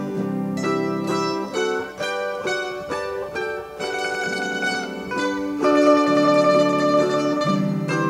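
Mandolin ensemble playing a melody in a quick run of plucked notes over lower held notes.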